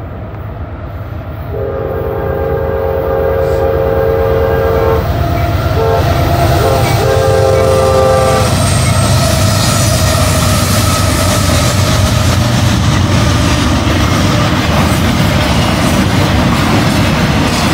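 Norfolk Southern diesel locomotive horn sounding for a grade crossing: a long blast, two short ones, then a final long blast as the locomotives reach the crossing. It is followed by the steady loud rumble of the intermodal train rolling through.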